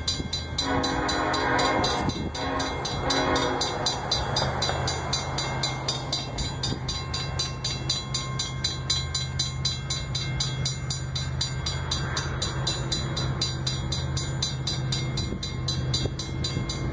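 Diesel freight locomotive's air horn sounding a long blast and then a short one within the first few seconds. After that comes the steady low drone of the diesel locomotives working as they haul a loaded grain train.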